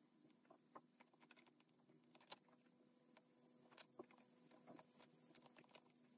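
Near silence, broken by a handful of faint, sharp clicks and taps as hands handle 3D-printed plastic engine-model parts and a small DC motor's wires.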